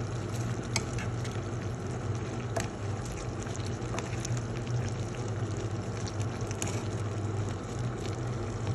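Thick shrimp, mushroom and sweetcorn sauce simmering in a pan, with irregular soft pops from bursting bubbles, over a steady low hum.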